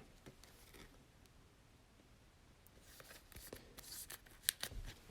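Faint rustling and light clicks of trading cards and a foil pack being handled, starting a little over halfway through after a near-silent pause.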